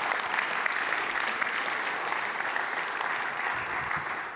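Audience applauding at the end of a talk, steady clapping that begins to die away near the end.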